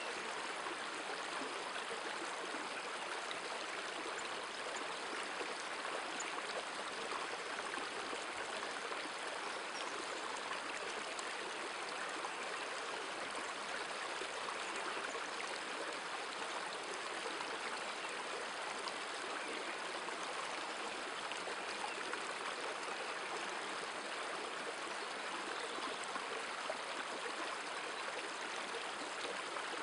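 Steady, even rush of river water flowing over a stony bed.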